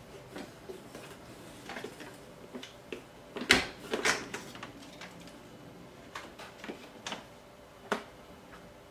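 Hard plastic parts of a Fisher-Price Sit-Me-Up floor seat clicking and knocking together as a leg is pressed into the seat's base. There is a cluster of louder knocks and snaps about three and a half seconds in, and one sharp click near the end.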